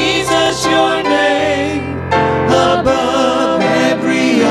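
Mixed group of men and women singing a gospel praise song in harmony, with vibrato on held notes, over a steady instrumental accompaniment.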